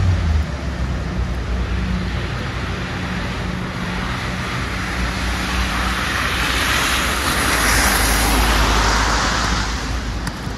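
A car driving past on a snowy street: the rush of its tyres swells over several seconds, is loudest about eight seconds in, then fades. A low engine hum dies away in the first moment.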